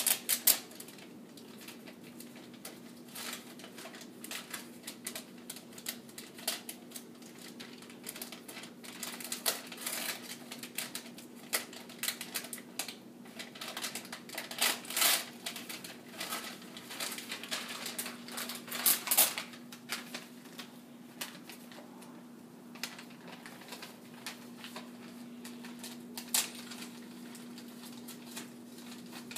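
Wrapping paper crinkling and tearing in irregular bursts as a small gift is unwrapped by hand, with the busiest stretch in the middle, over a steady low hum.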